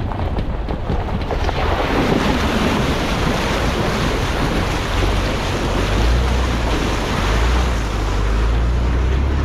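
Off-road SUV fording a rocky mountain creek: rushing, splashing water around the tyres and wind buffeting the outside-mounted microphone, over a steady low rumble. The water gets loud about a second and a half in.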